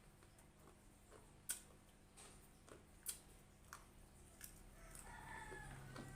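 Quiet eating sounds from a meal of fried chicken and rice: a few sharp mouth or food clicks a second or two apart, with smaller ticks between them. A faint wavering tone comes in about five seconds in.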